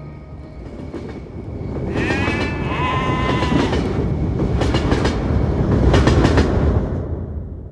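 A low rumbling noise that swells and then fades, with high whistle-like tones about two and three seconds in and a few sharp clacks near the end.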